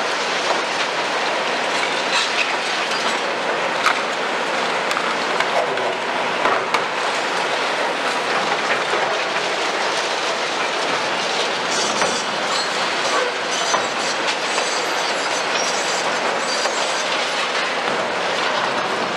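Tracked excavators working a pile of demolition rubble: a steady dense clatter and scraping of broken concrete and masonry under the buckets, with scattered sharper knocks.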